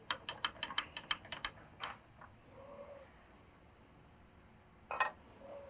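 A fast run of sharp clicks, about seven a second for roughly two seconds, then one more click about five seconds in.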